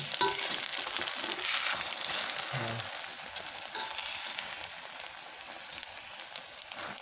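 Egg omelette sizzling in hot oil in an aluminium wok, with a metal spatula scraping and tapping against the pan. The sizzle is louder for the first few seconds, then eases off a little.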